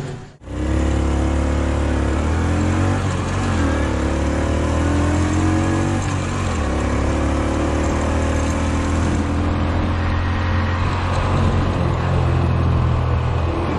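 Motorcycle engine running under way as the bike rides along a road. Its note rises and falls with the throttle and shifts noticeably about six seconds in.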